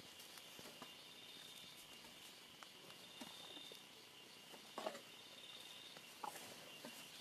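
Faint forest insects, crickets or similar, trilling in short repeated high-pitched bouts. Scattered crackles of dry leaf litter and twigs as the elephants move and feed are mixed in, the loudest about five seconds in.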